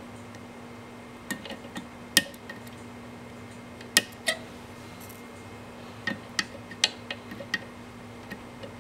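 Side cutters snipping through LED leads on a circuit board: about a dozen sharp clicks spaced unevenly, some in quick pairs, the loudest about two and four seconds in.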